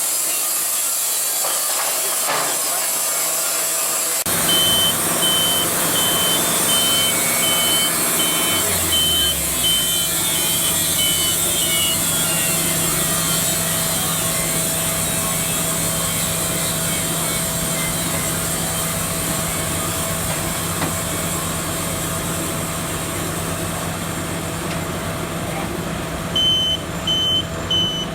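Engine-driven machinery running steadily, with a high electronic back-up alarm beeping about twice a second for several seconds and again near the end.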